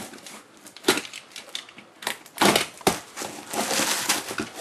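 A taped cardboard box being cut and torn open, its flaps pulled back: a few sharp cardboard cracks and rips around one, two and three seconds in, then steady crinkling of the plastic wrapping inside near the end.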